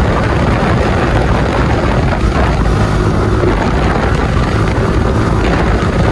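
Motorcycle running under throttle on the road, its engine mixed with a steady rush of wind on the microphone.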